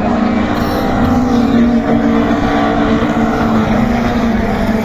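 Racing touring-car engines running hard at high revs, a loud, steady engine note that holds nearly the same pitch throughout.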